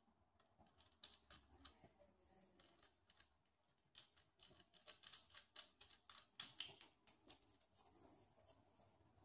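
Faint, quick clicks and taps of a camera being fitted to and handled on a Manfrotto compact aluminium tripod's ball head. The clicks are sparse at first and come thick and fast from about four to seven seconds in.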